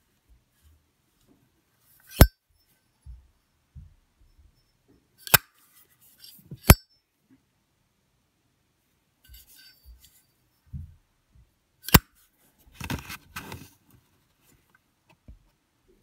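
Zippo windproof lighter's hinged metal lid flicked open and snapped shut: four sharp metallic clicks, each with a faint ring. After the last click comes a brief cluster of scraping and knocking as the lighter is handled.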